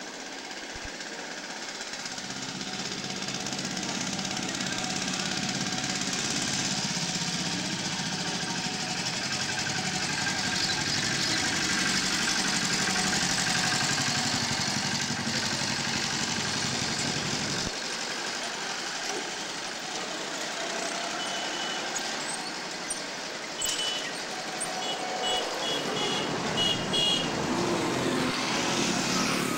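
Street traffic: a motorised three-wheeler's engine running as it passes close, building to its loudest about halfway through, then easing. Near the end, a string of short high beeps.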